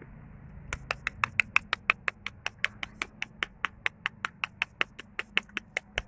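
A rapid, even series of short, sharp clicks, about six a second, starting about a second in.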